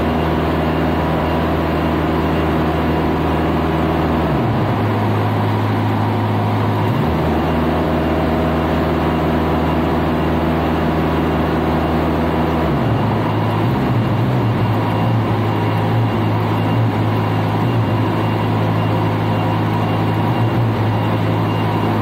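Niftylift HR21D boom lift's engine running steadily, its note switching back and forth between two steady levels a few times, at about 4, 7 and 13 seconds in, as the drive trigger is worked. The engine is being checked for a throttle-solenoid fault, suspected because it no longer goes reliably into high revs.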